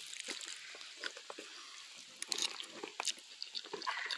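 Close-up chewing and mouth sounds of a person eating spaghetti, with irregular small clicks.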